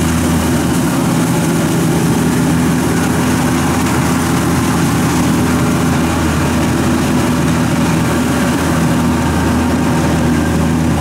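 Kubota DC-70 rice combine harvester's diesel engine running steadily under working load while it harvests, a constant engine drone that holds the same pitch and loudness.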